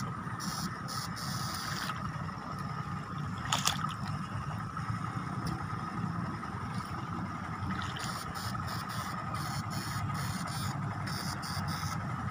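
Homemade backpack eel electroshocker running: a steady electrical hum with a thin, high, steady whine, while higher hiss cuts in and out in short spells. A single sharp click comes about three and a half seconds in.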